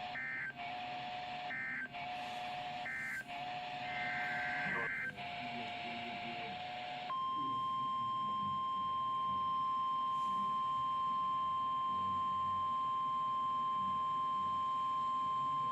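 Emergency Alert System SAME digital data bursts over NOAA Weather Radio: a run of harsh, screechy bursts broken by short gaps. About seven seconds in they give way to the single steady NOAA Weather Radio 1050 Hz warning alarm tone, which holds for the rest.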